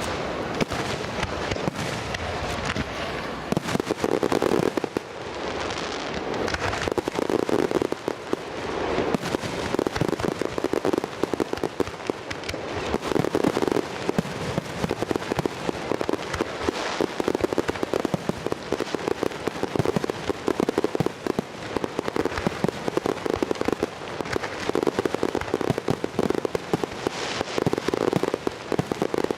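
Fireworks display: a continuous barrage of shell bursts and dense crackling, many pops a second, swelling in surges every few seconds.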